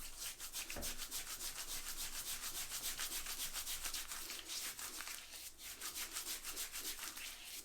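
Pre-shave cube being rubbed over two days of beard stubble: a quick run of dry, scratchy rasping strokes, several a second.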